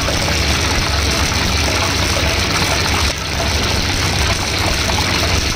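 Hot cooking oil sizzling and crackling in a steel wok as it heats for deep-frying rice vermicelli, over a steady low rumble.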